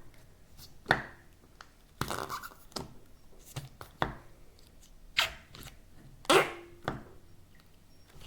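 Slime being squeezed and pressed, trapping and pushing out air in a string of short squelching pops and airy puffs that sound like farts, about six in all, the loudest about six and a half seconds in.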